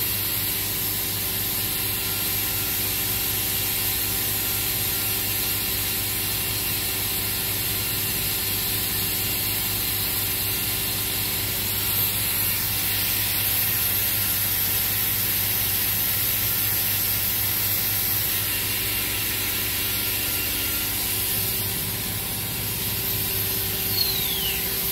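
OKK HM6300S horizontal machining center's 50-taper spindle running at a steady speed: an even mechanical hum with several constant tones and a steady high hiss over it.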